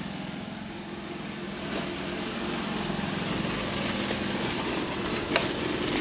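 iRobot Roomba E5 robot vacuum running: its vacuum motor and brushes make a steady mechanical hum that grows a little louder, with two brief clicks, one about two seconds in and one near the end.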